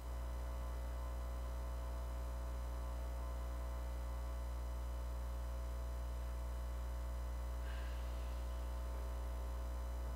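Steady electrical mains hum, a low buzz with a ladder of overtones, holding level throughout. A faint, brief sound comes about eight seconds in.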